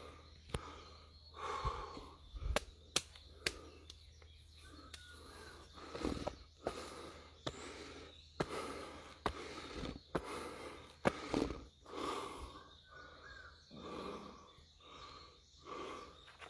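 Footsteps of someone walking, about one step a second, with sharp clicks between them.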